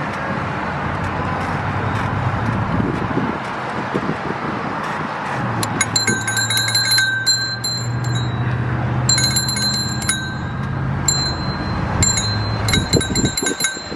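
Handlebar bicycle bell on a pedal surrey rung in quick bursts of dings, four bursts starting about six seconds in, over a steady rushing noise.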